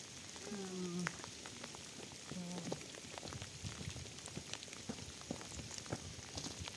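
Rain pattering steadily, with two short pitched cries in the first three seconds. Footsteps on stony ground come in during the second half.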